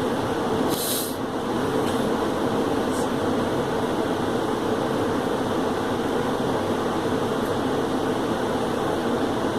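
Steady, even background noise with no speech, and a short hiss about a second in.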